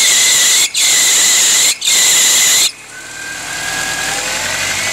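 Subaru Forester's power steering pump and belt squealing loudly under load as the steering is cranked hard back and forth: three long squeals, then it drops to a fainter whine. The owners take the noise as a sign that the power steering pump is going out.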